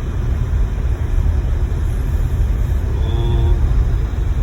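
Steady low rumble of a car driving, heard from inside the cabin, with a brief pitched sound about three seconds in.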